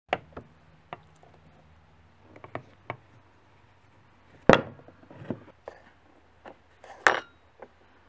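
Scattered clicks and knocks of a screwdriver working the rusty slotted screw out of the handle knob of an antique hand-crank valve lapper, with the metal tool and knob being handled on the workbench. The loudest knocks come about four and a half and seven seconds in.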